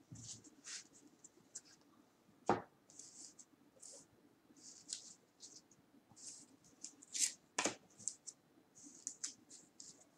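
Hands handling trading cards: short scratchy slides of card against card and table, with two sharp clicks, one about two and a half seconds in and one near eight seconds.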